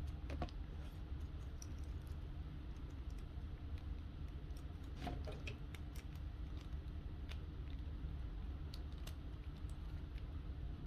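Scattered small plastic clicks and snaps of model-kit parts being handled and pressed together, with a couple of louder snaps near the start and about five seconds in, over a steady low hum.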